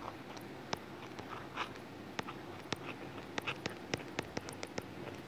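Stylus tapping and scratching on a tablet's glass screen during handwriting: irregular sharp clicks, two or three a second, with a few short scratchy strokes between them.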